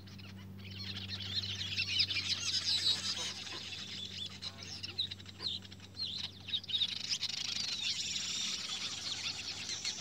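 Weaver birds chattering at their nesting colony in an acacia: a dense jumble of rapid, high chirps that thins out about seven seconds in, over a steady low hum.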